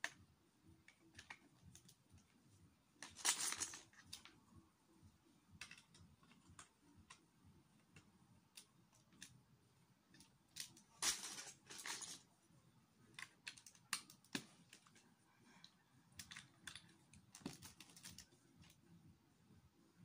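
Plastic Lego bricks being handled and pressed together: scattered small clicks, with three longer rattles, the loudest about three seconds in.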